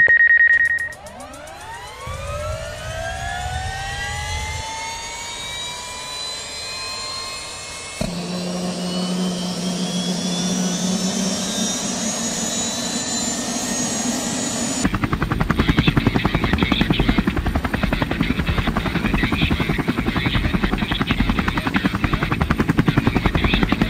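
DJI Mavic Air 2 quadcopter's propellers whining and buzzing. Over the first several seconds the pitch rises steadily as the motors spin up at takeoff. The sound then changes abruptly twice, to a steady buzzing hum.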